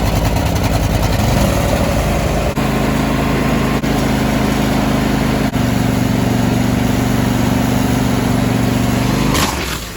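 Husqvarna YTH22V42 riding mower's V-twin engine starting on choke after new ignition coils. It runs unevenly for about the first second, then settles into a steady fast run. Its level drops sharply near the end.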